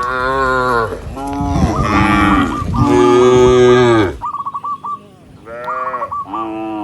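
Several cattle mooing, their calls overlapping one another for the first four seconds, then two shorter moos one after the other near the end.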